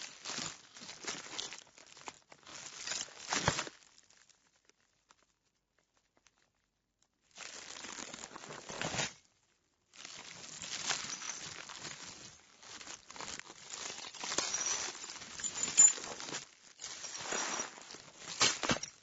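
Broken car windshield glass debris crunching and crackling in bursts. It is busy for the first few seconds, pauses, returns briefly around the middle, then runs almost without a break through the last nine seconds with a few sharp, louder crunches.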